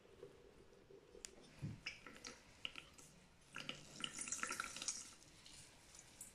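Coconut milk trickling and splashing through a metal colander into a plastic jug as wet ground coconut is squeezed by hand in gauze. The trickling is densest about three and a half to five seconds in, after a few light clicks from a spatula scraping the pulp out of a glass bowl.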